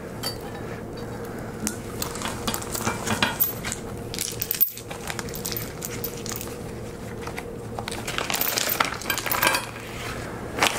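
Small steel socket cap screws and keys clinking against each other as they are handled and slipped into a plastic zip bag, with the plastic crinkling. There are many short clicks throughout, and a brief dropout about halfway.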